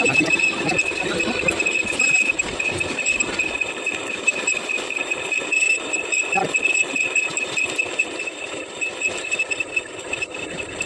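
Metal lathe running with the welded clevis end of an excavator hydraulic shaft spinning in it, giving a steady high whine over a light rattling clatter; it grows quieter near the end.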